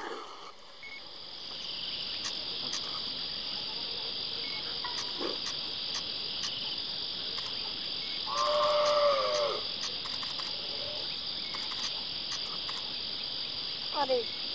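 Steady high-pitched insect chorus, like crickets, with faint scattered ticks. About eight seconds in, a louder drawn-out cry falls slightly in pitch for about a second and a half, and a shorter falling cry comes near the end.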